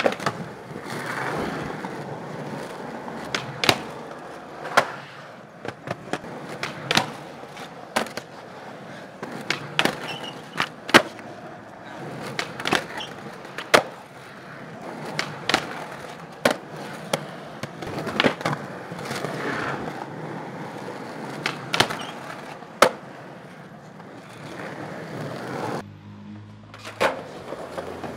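Skateboard wheels rolling over rough street pavement, broken by many sharp pops and smacks as boards are popped off the tail and land, several tricks in a row. The rolling stops briefly near the end, then picks up again.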